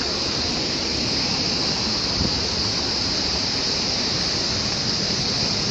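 Waterfall in flood: a steady rush of water, even and unbroken.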